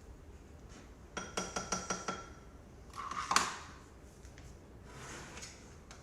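Kitchen utensils clinking against dishes: a quick run of about six ringing clinks about a second in, then a louder knock in the middle.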